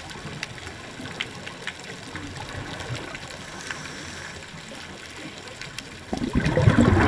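Underwater ambience: a steady hiss with scattered faint clicks, then about six seconds in a loud gush of bubbles from a scuba diver's regulator exhaust as the diver breathes out.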